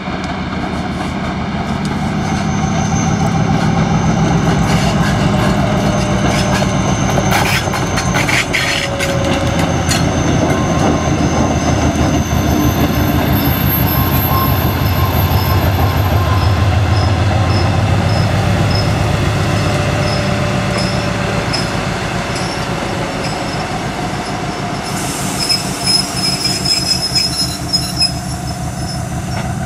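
Passenger train hauled by a 2TE10L diesel locomotive going by: the low drone of its two-stroke 10D100 diesel engines, wheels clattering over rail joints in a quick cluster partway through, and a thin wheel squeal.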